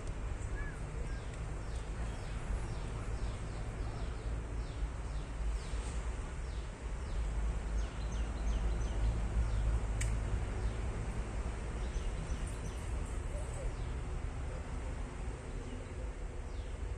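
Outdoor ambience: a steady low rumble that swells about eight seconds in, with runs of quick, high, falling chirps in the first half and again later on. A single sharp click comes about ten seconds in.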